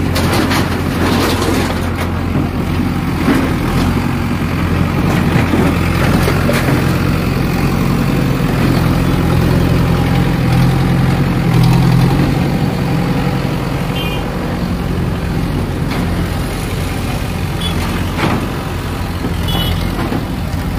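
Diesel engine of a JCB backhoe loader running under load, its low drone strongest about halfway through and then easing back. A few short knocks and clatters come over it.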